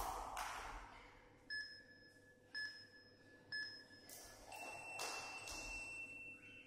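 Tabata interval timer on a tablet beeping a countdown: three short beeps a second apart, then one longer, higher beep of about two seconds as it reaches zero, marking the end of the 20-second work interval.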